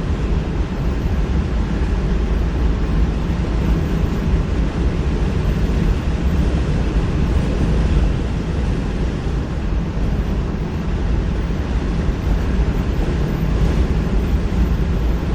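Jeep driving along a road: a steady rumble of tyres, engine and wind.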